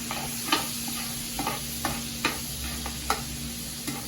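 Shrimp sizzling on high heat in a butter-type oil, with a few sharp clacks of a utensil against the cooking surface as they are stirred.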